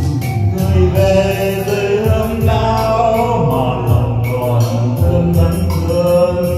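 A song playing: a voice singing over a backing track with a steady drum beat and heavy bass.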